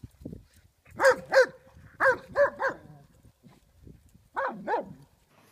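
A dog barking in short bunches: two barks, then three, then two more.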